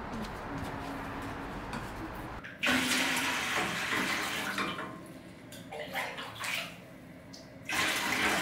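Steady background hush, then about two and a half seconds in, water starts pouring from a glass measuring jug into a galvanized metal watering can with a loud splashing. The pour eases off midway and comes back strongly near the end.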